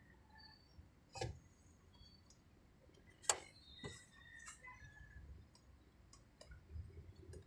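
Quiet cab with a few sharp, isolated clicks, the clearest about a second in and again about three seconds in, and some faint, short, high-pitched chirps in between.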